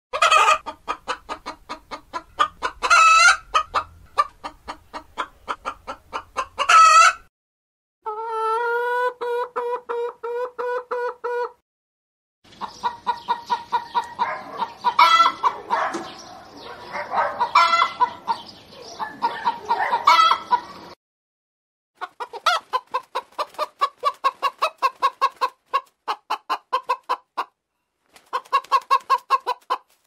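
Chickens clucking in several separate recordings joined with short breaks of silence. The first stretch is rapid clucking with a few loud cries, the next is a steadier run of evenly pitched clucks, and after that several hens cluck together with occasional sharp louder cries.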